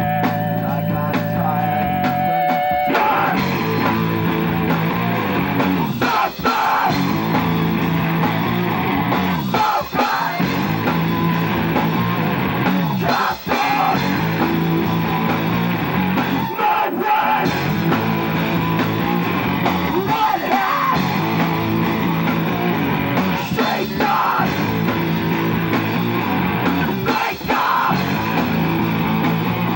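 Live amateur punk rock band playing electric guitars and drum kit, with shouted vocals. A held guitar chord opens, and the full band comes in hard about three seconds in, driving on with a steady beat.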